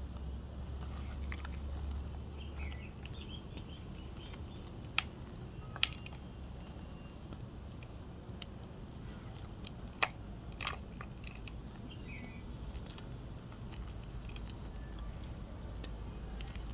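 Gym chalk being crunched: a few sharp crunches and cracks, coming in two pairs about five seconds apart, over a low steady hum. Faint bird chirps sound in the background.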